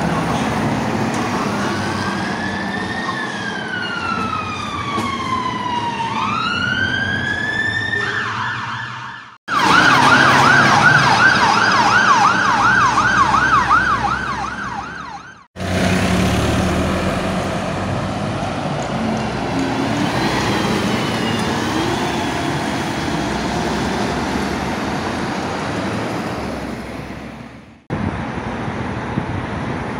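Fire engine siren in a slow wail, its pitch rising and falling over a few seconds with a second siren's tone overlapping. It then changes to a fast yelp of about three cycles a second. Afterwards, passing road traffic with a faint siren far off.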